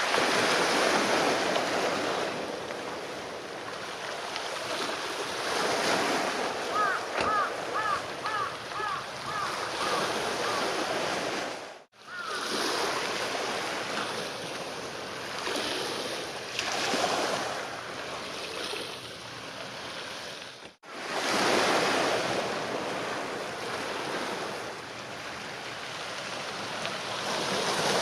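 Small waves washing against shoreline rocks, the surf swelling and easing every few seconds, with wind buffeting the microphone.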